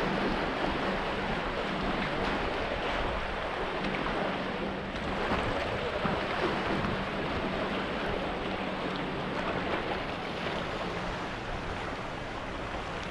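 Sea water splashing and sloshing around a kayak being paddled, a steady wash of water noise with wind rumbling on the microphone.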